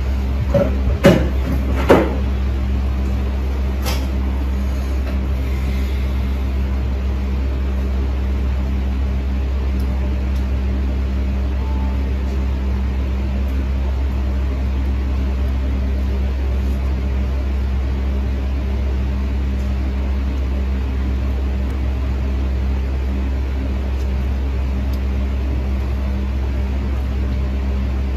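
Steady low machine hum with no change in pitch, with a few sharp clicks in the first two seconds and another near four seconds.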